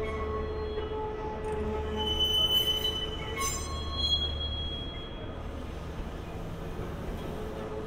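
E259 series electric multiple unit rolling slowly during shunting, with a steady low rumble and hum. From about two seconds in, its wheels squeal in high, thin tones for a couple of seconds; the rumble then dies away near the end.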